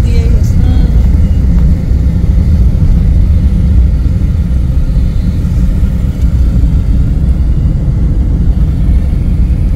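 Steady low rumble of a road vehicle on the move, heard from inside it: road and engine noise.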